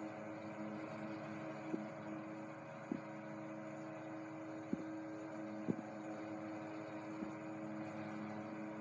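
Antique General Electric Whiz 10-inch desk fan running and oscillating: a steady, smooth, very quiet motor hum with the rush of the blades, freshly cleaned and oiled. A few faint clicks come at uneven intervals.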